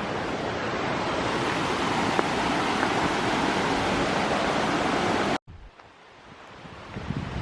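Steady rush of a river and waterfall. It cuts off abruptly about five seconds in, leaving a much quieter outdoor background.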